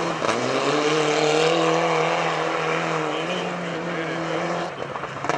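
Rally car's engine held at high revs as the car slides through a gravel bend. The pitch rises in the first half second, holds steady, then dips briefly near the end as the throttle eases.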